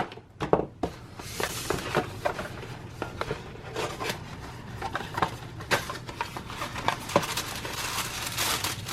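Packaging being handled and opened: crinkling and rustling with many small clicks and taps, as small doll accessories are unwrapped.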